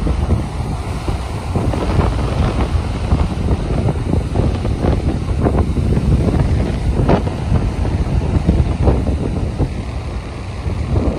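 Strong wind buffeting the microphone with a loud low rumble and irregular crackles, over ocean surf breaking and washing up a sandy beach.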